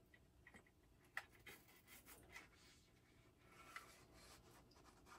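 Near silence: room tone with a few faint, light clicks and rubs.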